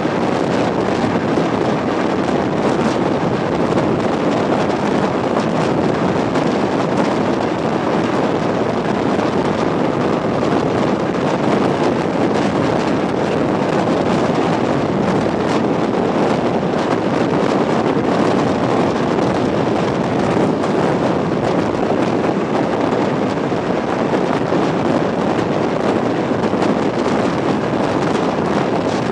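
ER2T electric multiple unit in motion: a steady, even running noise of the train, with no breaks or distinct knocks.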